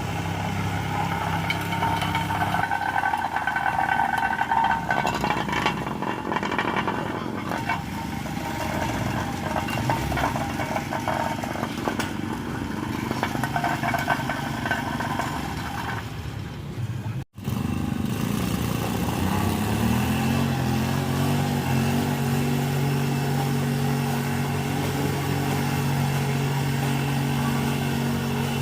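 Engine noise with voices mixed in during the first part. After a sudden break about two-thirds of the way in, an engine speeds up and then runs steadily.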